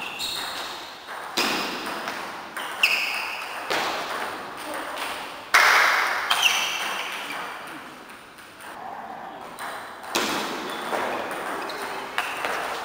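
Table tennis rally: the ball clicks sharply off bats and table in quick, uneven succession, ringing in a reverberant hall, with a louder hit about five and a half seconds in. Play goes quiet for a few seconds, then the clicks start again about ten seconds in.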